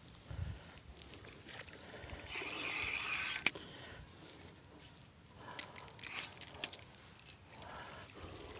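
Spinning reel cranked to retrieve a lure, a faint whirr that builds up to a sharp click about three and a half seconds in, followed by a few lighter clicks later on.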